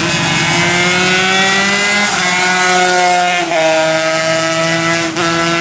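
135cc racing motorcycle engine running at high revs, its pitch creeping up and then dropping sharply three times, about two seconds in, past three seconds and near the end, as the rider shifts up.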